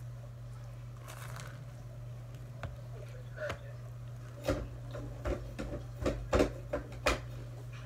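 Eating sounds at a table: a quick run of sharp clicks and taps starting about halfway through, from eating off a plastic tray, over a steady low hum.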